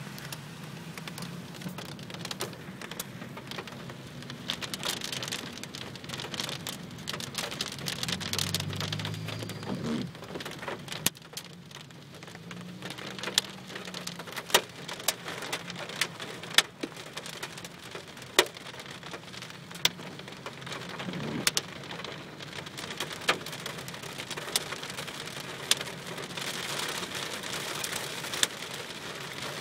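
Rainstorm: steady rain falling, with many sharp, separate drop impacts striking a nearby hard surface. A low rumble comes in about eight seconds in.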